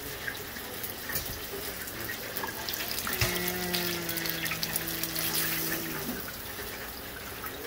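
Hot oil in an electric deep fryer sizzling and crackling around a basket of chicken wings that are done frying, a steady hiss dotted with small pops. A steady low hum joins for about three seconds in the middle.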